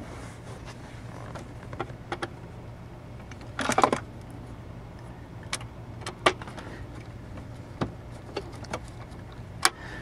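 Scattered clicks and a short rattle of small parts, screws and a panel being handled and fitted into a plastic center console, over a faint steady low hum.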